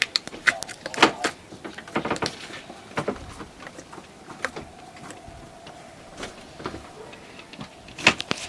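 Irregular soft clicks and handling noises, with the loudest clicks about a second in and near the end.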